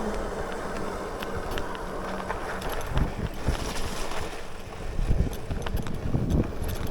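Wind buffeting the microphone and the rumble of an electric bike riding over rough ground, with scattered clicks and knocks. The motor's whine falls in pitch and fades out about two seconds in.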